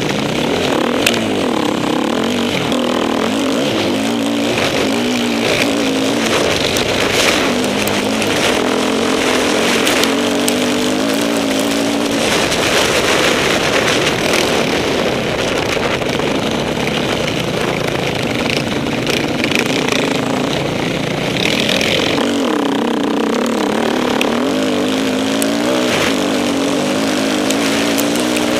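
Off-road motorcycle engine revving up and down repeatedly as it is ridden over a trail, under a constant rush of wind and riding noise, with a few sharp knocks.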